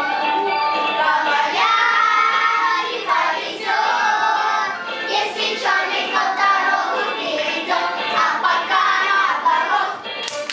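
A small group of young children singing together, a song in sung phrases with held notes and short breaks between lines.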